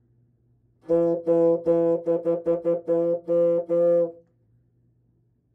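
Bassoon playing a rhythm pattern of about ten tongued notes, all on the one pitch, concert F, for about three seconds starting about a second in.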